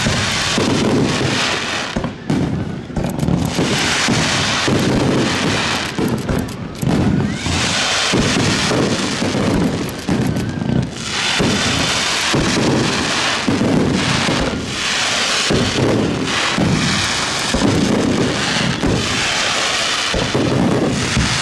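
Aerial fireworks going off in quick succession: shell bursts one after another with barely a break, overlapping with a steady high crackle.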